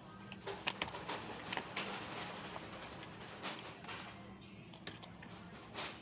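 Indistinct background chatter of people, with scattered sharp clicks and taps.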